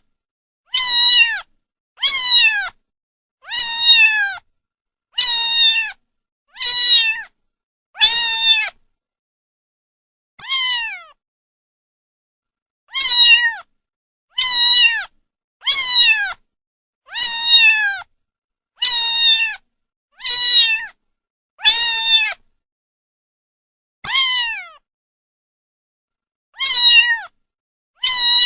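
Kitten meowing over and over, high-pitched mews that each slide down in pitch, about one every second and a half, with two fainter mews after short pauses and total silence between the calls.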